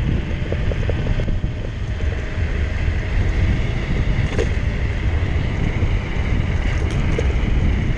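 Heavy wind buffeting on the microphone of a rider going fast on an electric scooter: a loud, steady low rumble.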